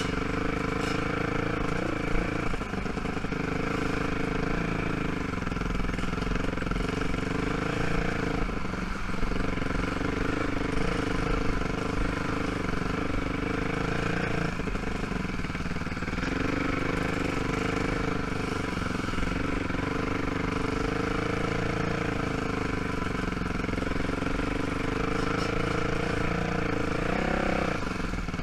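ATV engine running at low trail speed, its pitch shifting a little with the throttle and rising briefly near the end.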